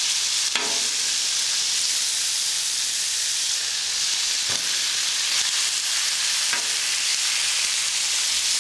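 Marinated chicken and beef strips sizzling steadily in oil on a hot flat-top griddle, with a few brief clinks of a metal spatula as the meat is spread out.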